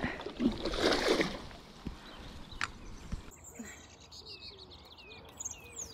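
Rustling and handling noise as a landing net holding a small pike is moved through bankside vegetation, with a sharp click partway through. In the second half, faint birds chirp in short falling notes several times.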